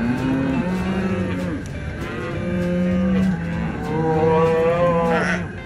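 Calves bawling, a run of long drawn-out calls one after another.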